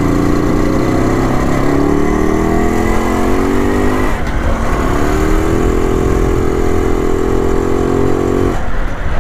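Rajdoot 175 single-cylinder two-stroke motorcycle engine pulling under throttle. Its pitch climbs slowly, drops briefly about four seconds in as at a gear change, climbs again, and breaks off shortly before the end.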